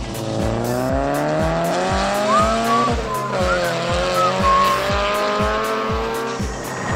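Car engine revving, its pitch climbing for about three seconds, dropping, then climbing again, with short squeal-like chirps in the middle. It plays over background music with a steady thumping beat.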